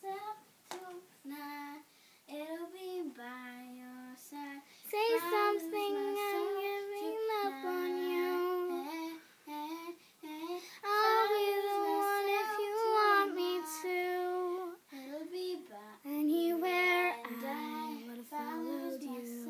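A child's voice singing a tune in phrases of held and sliding notes.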